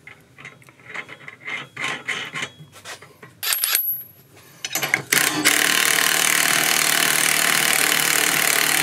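Small metal clicks as a washer and nut are fitted by hand onto the jackshaft. Then, from about five seconds in, a Makita cordless impact driver runs steadily, driving the nut down on the driven pulley.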